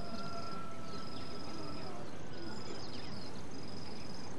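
Insects chirping in a high, repeated trill, each stretch lasting about a second with short breaks, mixed with short falling bird chirps. A steady whistle-like tone holds through the first two seconds.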